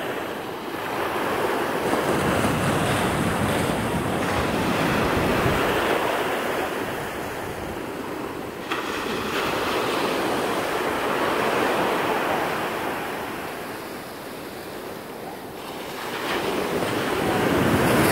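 Small surf breaking and washing up a sandy shore: a steady rush of water noise that swells and fades in long surges every few seconds, loudest near the end.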